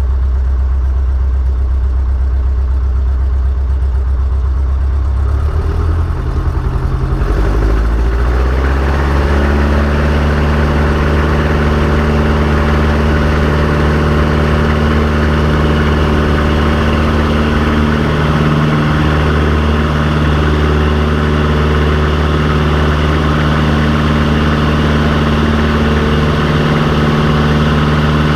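Vans RV-6A's piston engine and propeller, heard inside the cockpit: running low at first, then the engine note rises over a few seconds, starting about five seconds in, as the throttle is opened for takeoff. It then holds steady at full power through the takeoff roll and climb-out.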